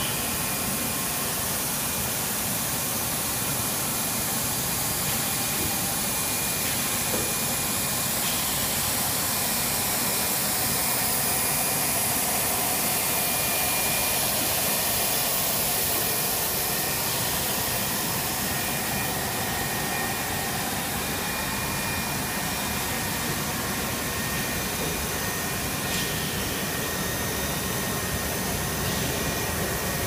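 Rubber microwave vulcanization production line running: a steady rushing hum of its oven blowers and drive motors, with faint high steady whines.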